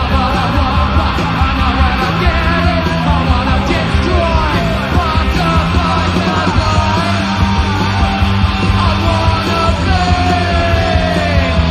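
Punk rock band playing loudly, with a driving bass line and shouted, yelled vocals.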